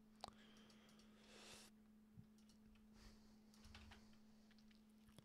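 Near silence: room tone with a steady faint hum and a few faint clicks of a computer mouse and keyboard, the sharpest one about a quarter second in.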